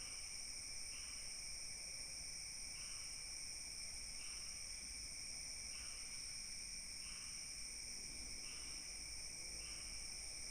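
Chorus of calling insects: steady high-pitched trilling, with a short chirp repeating about once a second.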